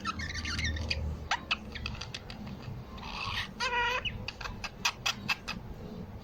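Birds chirping in short, sharp notes, with one brief wavering call a little over halfway through.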